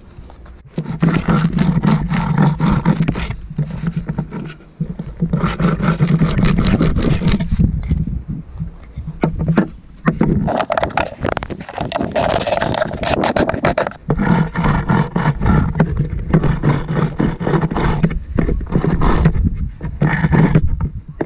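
Hand wire brush scrubbing rust off steel caravan wheel bolts, in several bouts of rapid scraping strokes with short pauses between them.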